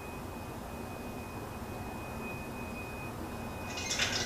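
A thin, steady high-pitched tone held over a low rumble, from a tense TV drama soundtrack; a burst of hissy noise comes in near the end.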